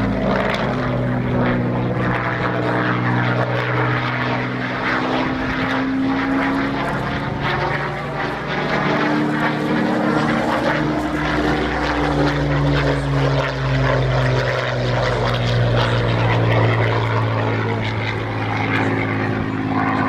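Rolls-Royce Merlin V12 engine of a Second World War fighter flying a display pass, running steadily with its pitch slowly rising and falling as it moves past.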